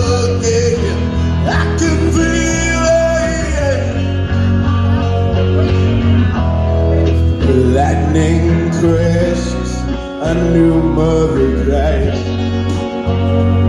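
Live music played through a PA: a man singing over guitar and a steady bass pulse.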